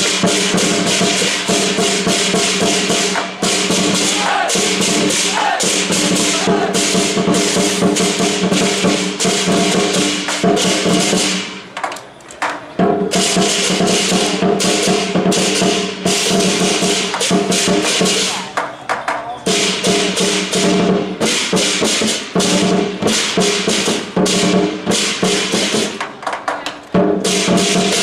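Lion dance percussion: drum, clashing hand cymbals and ringing gong played in a fast, unbroken rhythm. The playing drops out briefly about twelve seconds in, with shorter dips later.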